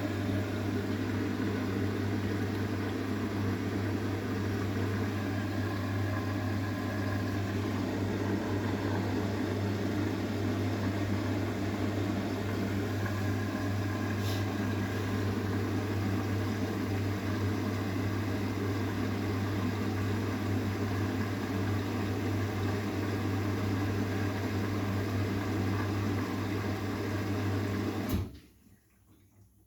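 Arçelik 9120M front-loading washing machine running early in its pre-wash: a steady low hum with a rushing noise over it that cuts off suddenly near the end, followed by a faint click.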